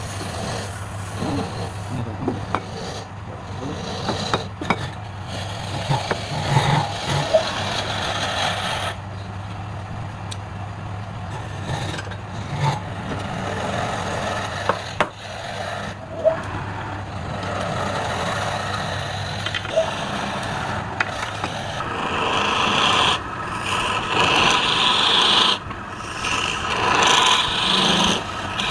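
Wood being cut and scraped by a hand tool as it spins on a wood lathe, a continuous rasping over a steady low motor hum, with a few sharp knocks. The scraping grows louder and harsher in the last several seconds, broken by short pauses.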